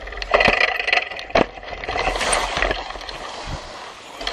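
Bicycle riding fast over dirt and dry leaves: a steady rush of tyre and wind noise, broken by sharp rattling knocks from the bike jolting over bumps, the loudest about half a second and a second and a half in.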